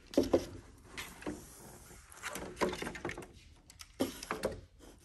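Plastic parts of a roof vent fan and their wiring being handled and lifted: a string of irregular light knocks and clatters with rustling between them.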